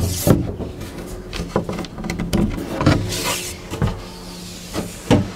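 A large wooden back panel being pulled off a cabinet: knocks and wood-on-wood scraping as it comes free, with a longer sliding scrape about three seconds in.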